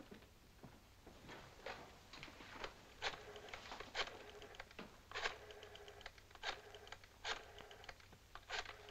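Rotary desk telephone being dialled: the dial is pulled round and whirs back with a run of rapid clicks, several digits in a row at roughly one a second.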